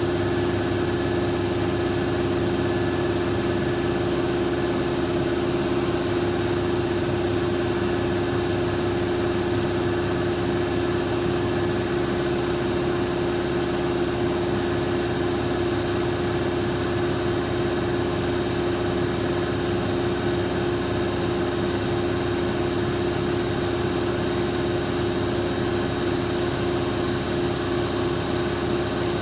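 Metal lathe running steadily: an even machine hum with a faint high whine that holds at one pitch.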